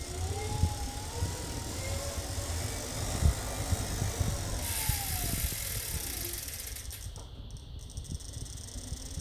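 Tacx Bushido Smart bike trainer running with irregular clicking and knocking, over a faint whine that wavers and then falls in pitch. The clicking is a fault that shows up after 5–10 minutes of a harder workout.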